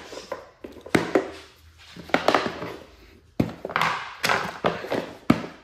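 Small metal tool parts being handled and set down: several sharp clicks and knocks at irregular intervals, with rustling between them.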